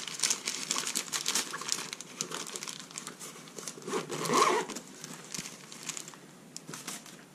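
Rustling and crinkling of a nylon shoulder bag's fabric as hands push things into its pocket and open it out, with a louder rustle about four seconds in.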